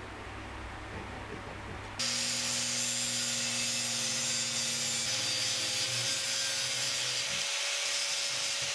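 Angle grinder with an abrasive cut-off disc, held in a small chop-saw stand, cutting through a metal tube. A loud, steady grinding hiss over a constant motor whine starts abruptly about two seconds in and runs on.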